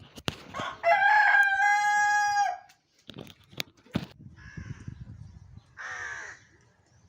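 Rooster crowing once, a loud call of about a second and a half held on one pitch, followed by a few knocks and two shorter, rougher calls.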